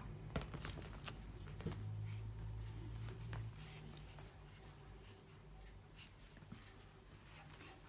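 Faint scratching and rustling of pug puppies scuffling on a rug, with small taps and clicks. A low steady hum starts about two seconds in and lasts about a second and a half.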